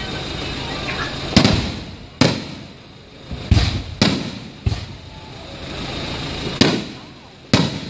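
Aerial firework shells bursting overhead: about seven loud, sharp bangs at irregular intervals, each trailing off in a short echo.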